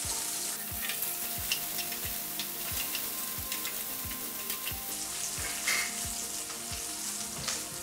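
Onion chunks sizzling in hot oil in an aluminium kadhai, with a steady hiss. A metal spatula stirs them, scraping and clicking against the pan now and then.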